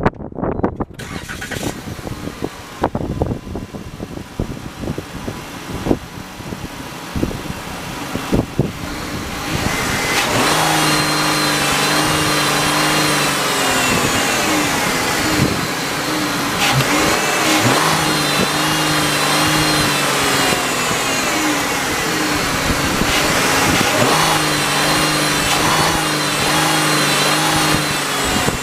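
Engine of a 2017 Ram ProMaster 1500 van, heard after a few seconds of clicks and knocks. It starts and runs, and is revved up and back down three times.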